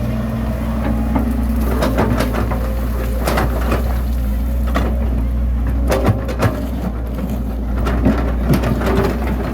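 Bulldozer's diesel engine running steadily under load, with irregular clanks and crunching throughout as it works soil.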